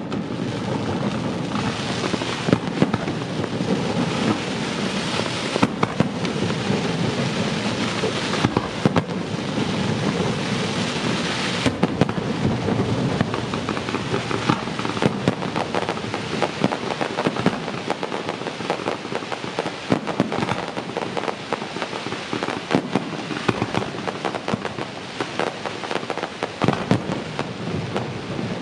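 Aerial fireworks display: a continuous barrage of shell bursts, with many sharp bangs over dense crackling that thins after about twelve seconds into more separate bangs.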